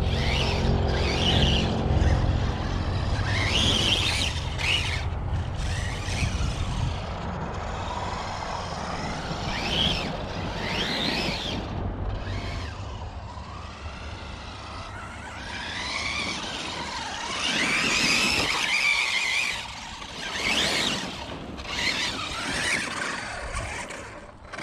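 RC basher truck's Spektrum 1250kv brushless motor and drivetrain whining up and down in pitch as it accelerates and lets off, with tyres skidding and scrabbling. The drivetrain note is one that the owner thinks sounds a little tight in the gear mesh.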